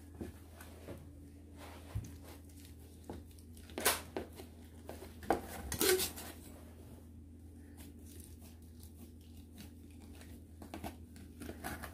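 Kitchen knife cutting through a block of pressed pig's-head meat on a metal tray: scattered tearing and crackling sounds with a few louder clicks and scrapes about four to six seconds in, over a steady low hum.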